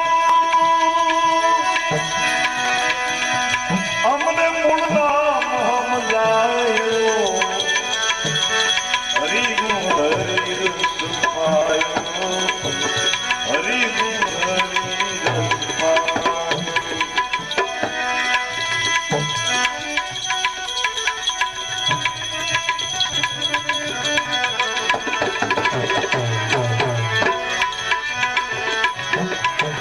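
Tabla playing a steady, fast accompaniment rhythm in an instrumental interlude of a devotional bhajan. A melodic instrument glides up and down over a sustained drone.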